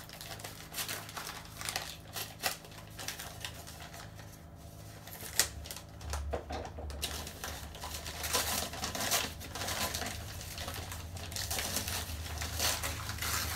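Packing material rustling and crinkling as a plant is unwrapped by hand: a run of irregular clicks and crackles, busier in the second half.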